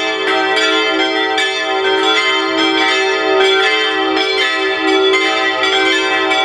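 Full peal of five swinging church bells cast by the Rincker foundry, tuned e'' g'' a'' c''' d''', striking over and over with their strikes overlapping into a dense, steady ringing.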